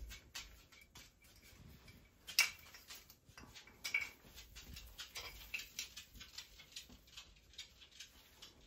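Faint handling noise of ornaments being hung on an artificial Christmas tree: light rustling of branches and tinsel with scattered small clicks, the sharpest about two and a half seconds in and another at about four seconds.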